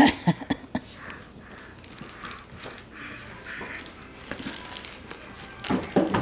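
Plastic wrapping on a multipack of tissue boxes crinkling in scattered small crackles as a baby's hands grab and pull at it, with brief voice sounds at the start and again near the end.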